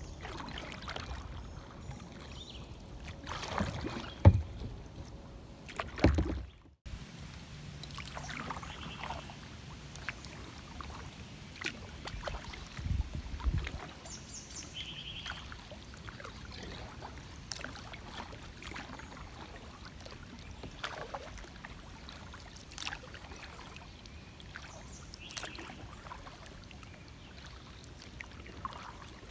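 Kayak paddling on calm river water: irregular paddle strokes and drips splashing beside the hull. There are a couple of louder knocks a few seconds in and a brief dropout in the sound about seven seconds in.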